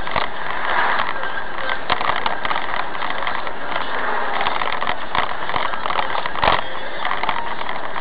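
Steady in-cab noise of a truck driving on a wet highway, engine and tyre noise together, with frequent small clicks and rattles and one sharper knock about six and a half seconds in.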